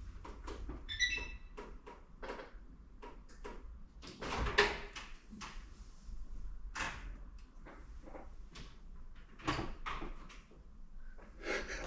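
Scattered knocks and clicks from handling at a built-in kitchen oven and counter, the loudest at about four and a half, seven and nine and a half seconds in. A short high beep sounds about a second in, over a faint low steady hum.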